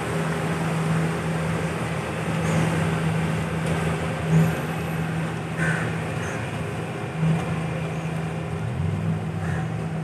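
A steady low engine drone holding one pitch, over general outdoor noise.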